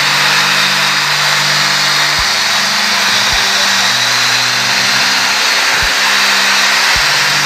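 Corded electric drill, clamped in a homemade drill press, running and boring a hole into a small wooden board.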